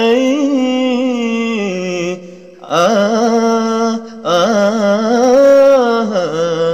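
A young man singing solo and unaccompanied: three long phrases with short breaths between, the held notes wavering with vibrato and ornamental turns.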